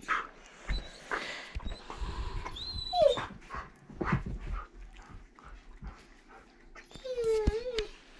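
Dogs scuffling on a couch, with rustling and soft thumps, and a dog's short whine about three seconds in. Near the end a dog gives a longer whining cry that rises and falls in pitch.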